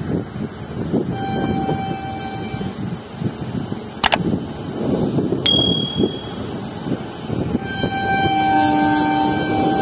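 Horn of an approaching Indian Railways freight locomotive, sounded twice: a short single-note blast about a second in, then a longer, fuller blast of several notes starting near the end. Two sharp clicks fall between the blasts, over a low, fluctuating rumble.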